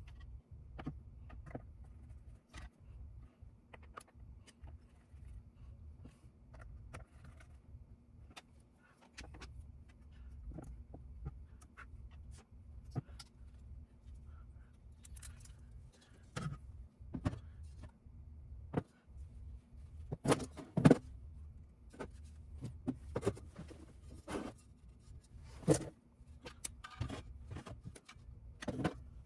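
Irregular clicks, taps and small knocks of hard parts being handled and fitted during work on an external GPU enclosure, growing busier and louder in the second half, over a faint steady hum.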